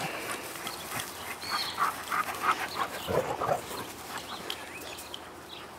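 Dogs playing: a string of short panting sounds, then a short, stronger vocal sound from a dog about three seconds in.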